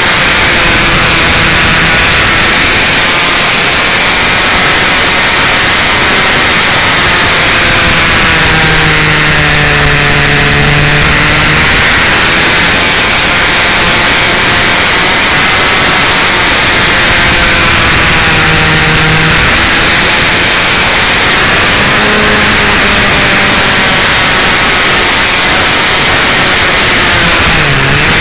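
Motorcycle ridden at speed through bends: loud, steady wind rush over the microphone. Under it the engine note dips and rises again several times as the rider eases off and accelerates.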